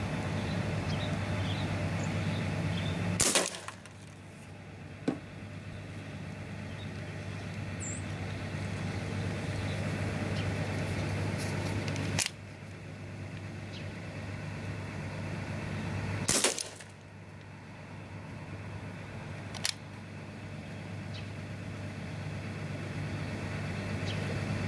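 Umarex Brodax CO2 BB revolver fired three times, several seconds apart, each shot a sharp pop, with a couple of fainter clicks between shots. A steady low hum of background noise runs underneath.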